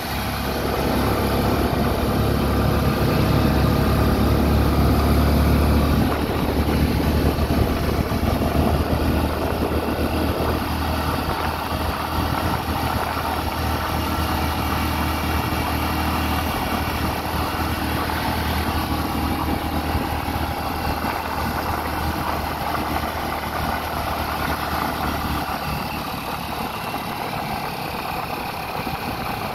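A vehicle's engine running steadily with a low rumble, a little louder for the first six seconds or so, then evening out.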